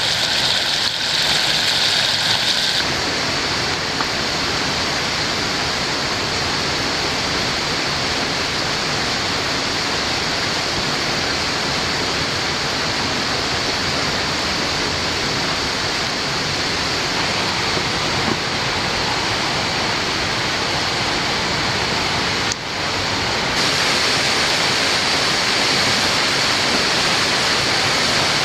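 Steady rush of water from a rainforest waterfall or creek. Its tone shifts abruptly a few seconds in and again near the end, with a brief dip in level just before the second shift.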